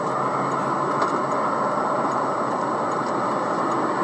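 Steady noise of a car, heard from inside its cabin on the dashcam microphone, with a faint thin high whine over it.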